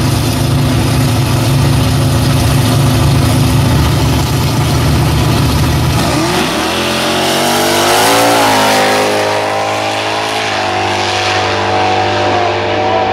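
Two V8 drag cars, a 1969 Camaro Z28 with a supercharged, nitrous-fed 400 small-block and a Fox-body Mustang, running loudly at the start line. About six seconds in they launch, and the engine note climbs in pitch as they accelerate away, with gear shifts about eight and ten and a half seconds in.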